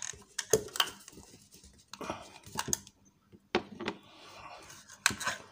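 Light clinks and knocks of a metal lid being handled and set back onto a cylindrical perfume gift tin, about a dozen sharp taps spread over several seconds.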